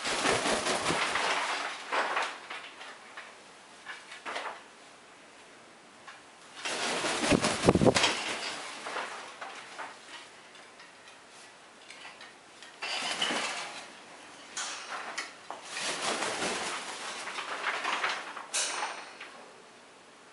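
Green-winged macaw wing flapping in several noisy bursts with quieter gaps between, mixed with clattering as the bird lands and shifts on the wooden perches.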